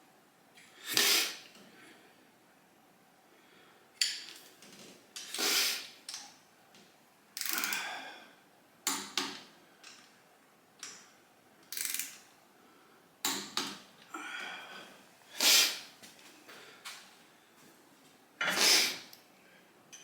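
Intermittent clanks, clicks and short scrapes of metal parts and hand tools being picked up, set down and worked, about a dozen separate sounds with quiet gaps between them.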